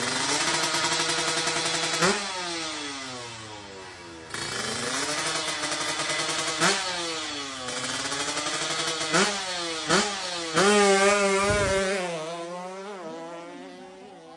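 Drag-racing motorcycle engine revving hard, its pitch dropping and climbing again several times, with a few sharp cracks between revs. It dies away near the end.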